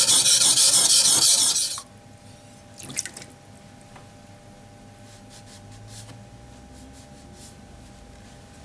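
A loud rush of water for a little under two seconds, as when water is splashed or sprayed onto a sharpening water stone, then a few faint clicks about three seconds in over a steady low hum.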